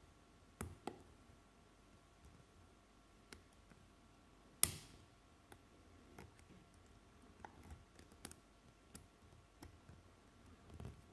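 Abus Pfaffenhain padlock being picked: faint, scattered clicks and ticks of the pick and tension tool against the spool pins, with one sharp click about halfway through.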